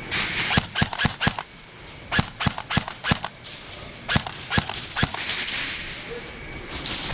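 Airsoft guns firing single shots in three quick strings of sharp cracks, about three to four shots a second, with short pauses between the strings.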